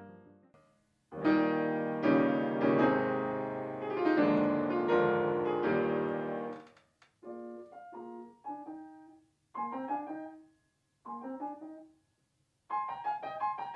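Yamaha CFX concert grand piano being played: about a second in, loud full chords ring out for several seconds, then shorter, softer phrases separated by pauses, and near the end a fast run of notes falling in pitch. In the first second, the last chord of a different grand piano fades away before the switch.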